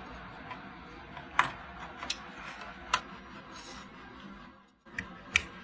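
A few sharp plastic clicks from SATA cable connectors being handled and pushed into a computer motherboard's header, over a faint steady hum.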